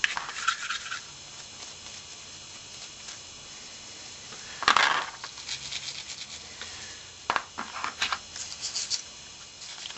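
Bristle cleaning brush scrubbing the degreaser-sprayed parts of a disassembled Glock pistol magazine. The strokes come in short bursts: a few in the first second, a quieter stretch, a louder stroke about halfway through, then a run of quick strokes near the end.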